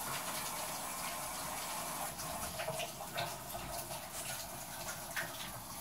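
Water running steadily from a tap, with a few small clicks and splashes.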